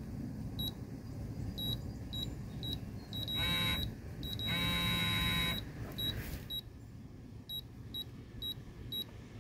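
Vevor digital torque wrench beeping as torque builds on a lug nut, the short high beeps coming faster and faster, then giving two longer buzzing tones about three and four and a half seconds in: its alert for closing on and reaching the set torque. Near the end a second run of beeps starts and quickens as the wrench is pulled again.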